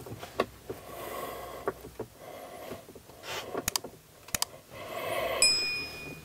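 Light clicks and scrapes of a metal hex key turning a 20 mm ball-mount bolt as it is threaded into a grab handle, mixed with the rustle of handling. About five seconds in, a short ringing chime sounds.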